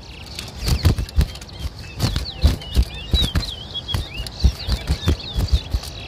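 Towa-towa (chestnut-bellied seed finch) singing short gliding whistled notes, over a run of low thumps and wing flutters.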